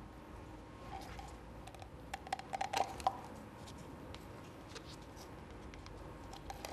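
Soft handling sounds of small objects: a quick run of light clicks and rustles about two to three seconds in, over faint room tone.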